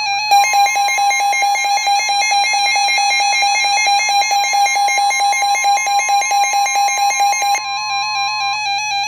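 Emergency alert attention signal: a steady high tone held for about eight seconds over a rapid electronic pulsing and a looping electronic tune. The pulsing stops about seven and a half seconds in.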